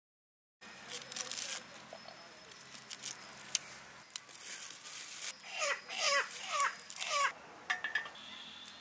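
Dry garlic skins crackling and rustling faintly as cloves are peeled by hand. Around the middle, a bird calls four times in short notes that slide downward.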